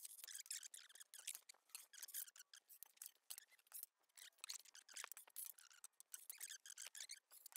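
Faint, rapid, irregular high-pitched clicks and scratches of wooden boards being handled, shifted and laid down on a concrete shop floor.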